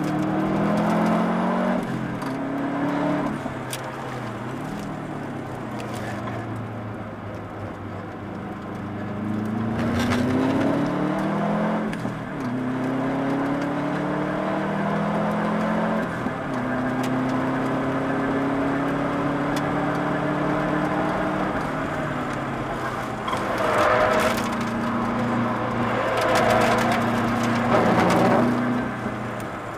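Subaru Impreza WRX's turbocharged flat-four engine, heard from inside the cabin, revving hard through the gears. Its pitch climbs and then drops at each gear change, with a few longer steady stretches, and louder bursts of noise come near the end.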